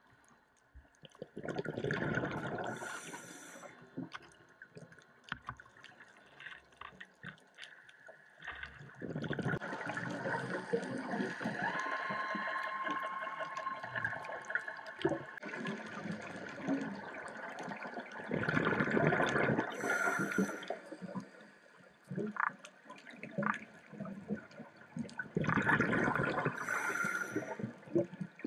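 Scuba regulator breathing heard underwater: gurgling bursts of exhaled bubbles every several seconds, one long one in the middle, each ending with a short hiss.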